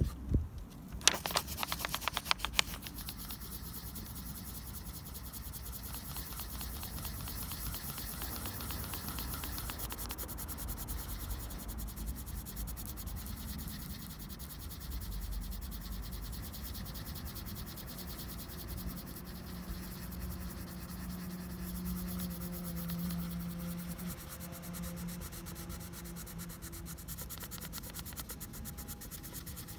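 Colourless blender pencil rubbed in quick small strokes over layered coloured pencil on paper, a steady scratchy rubbing, with a few light knocks in the first couple of seconds.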